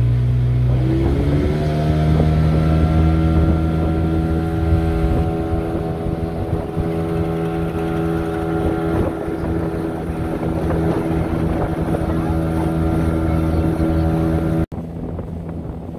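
Motorboat engine speeding up over the first second or so, then running steadily at the higher pitch. Near the end the level drops suddenly and the engine carries on more faintly under wind noise.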